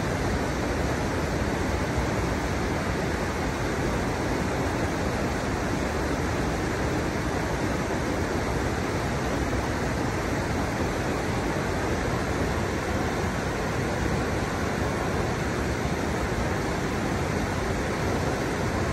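River water pouring over the small drops of a stepped riverbed, a steady rushing sound with no change.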